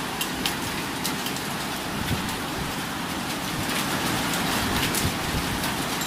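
Heavy rain falling steadily, with scattered sharp ticks of drops striking close by.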